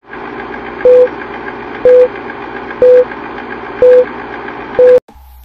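Old-film countdown sound effect: a steady film-projector clatter with a short mid-pitched beep once a second, five beeps in all, the whole effect cutting off suddenly just after the last beep.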